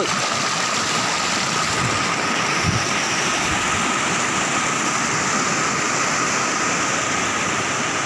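Forest stream cascading in a small waterfall over granite boulders: water rushing and splashing in a steady, even noise.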